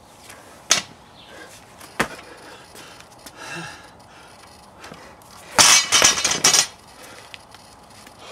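Loaded barbell dropped from overhead onto rubber mats, the bar and plates clanking and rattling for about a second as it bounces and settles, a little past the middle. Two single sharp clicks come earlier.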